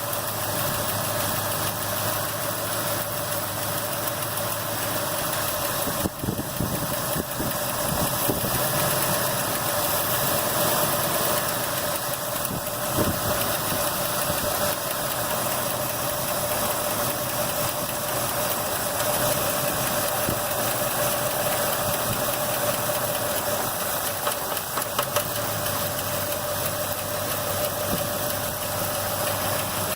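Car engine idling steadily with a ticking that is taken to be lifter noise.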